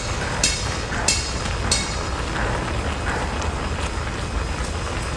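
Sucking and slurping sounds from eating sea snails: four short, sharp sucks in the first two seconds, over a steady low rumble.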